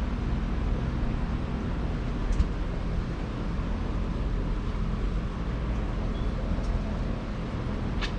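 Steady low rumble of background noise, like passing traffic, with a couple of faint clicks.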